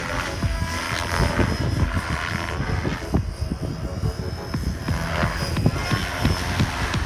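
Gaui X5 electric radio-controlled helicopter in flight, its rotor and motor sound mixed with gusty wind rumble on the microphone.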